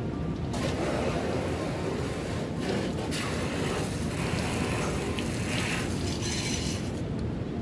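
Water spraying from a hand-held hose nozzle against the side of a pickup truck, hissing in stretches with a short break about two and a half seconds in, over a steady low rumble.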